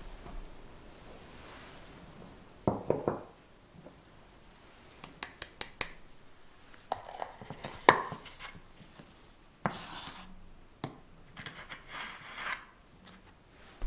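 Small kitchen handling sounds while measuring dry ingredients into a metal mesh sieve: a few quick taps of a container against the sieve, light clicks and clinks, then dry rustling and scraping as a paper cover is lifted off a jar and a measuring spoon goes in.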